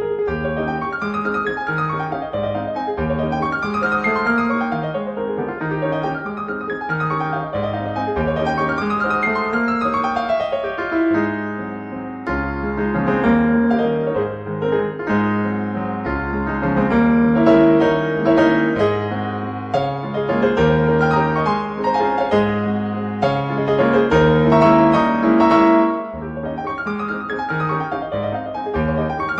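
Background piano music, a steady flow of notes and chords over a repeating bass line.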